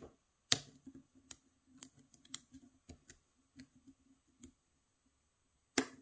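A lock pick working the pins of an Abus Pfaffenhain WavyLine Pro dimple lock under tension: a run of small, faint metallic clicks and ticks, with two sharper clicks, one about half a second in and one near the end. The last sharp click is a pin setting at the back of the lock.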